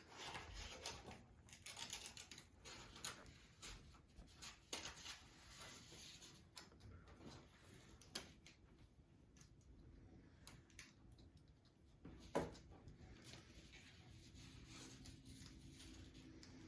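Faint, scattered light clicks and taps, with one sharper tap about twelve seconds in.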